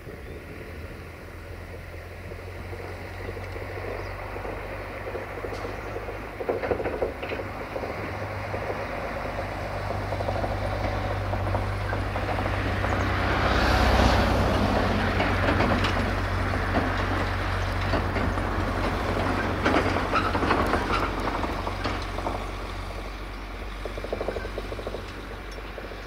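Mercedes-Benz Actros 1843 semi-truck with a tipper trailer driving past on a dirt road: the diesel engine's steady hum and tyre noise grow louder to a peak about halfway through as it passes, then fade as it moves away.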